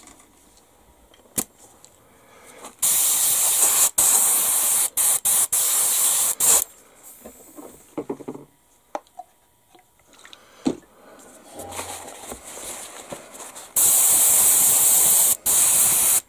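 An airbrush being blown out with cleaner to flush dried primer from it. It hisses in trigger-controlled spurts, loudest about three seconds in and again near the end, with short stops and a few clicks between.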